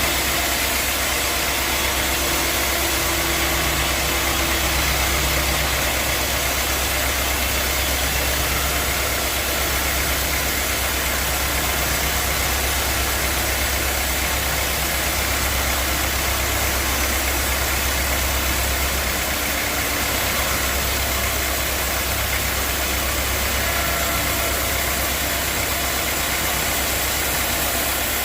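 Sawmill machinery running steadily: a constant low hum under an even, loud hiss, with no breaks or changes.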